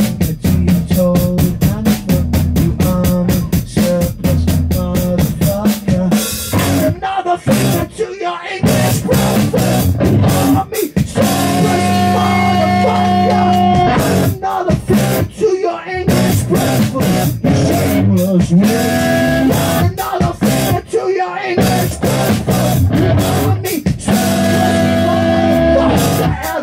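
Live rock band playing: electric guitars, bass and a drum kit with a singer's vocals. The band cuts out abruptly several times for a split second and comes back in.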